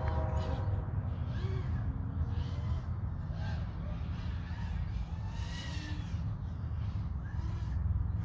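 Birds calling again and again, short harsh arched calls about once a second, over a steady low rumble.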